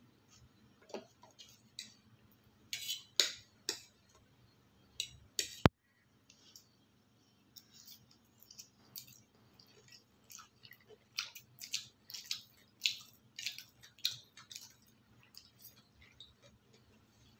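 Close-up mukbang eating sounds: noodles being chewed, with forks clicking and scraping on the plates in short, sharp bursts that come in clusters. One very sharp click about five and a half seconds in.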